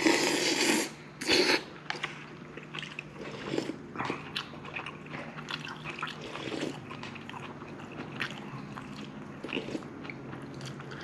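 Two loud slurps of wheat noodles in spicy beef soup in the first second and a half, followed by close-up chewing with small wet clicks and smacks.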